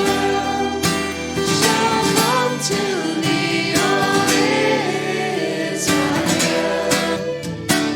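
Worship song played by a church band: singing voices over a strummed acoustic guitar.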